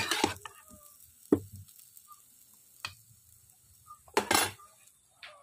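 A spatula scraping and knocking against a steel kadhai as fried potatoes are scooped out: a few separate short scrapes and clicks, the longest about four seconds in.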